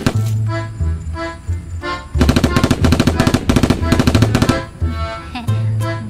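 Background music with a pulsing bass line, overlaid with rapid-fire machine-gun sound effects in bursts; the longest burst runs from about two seconds in to four and a half.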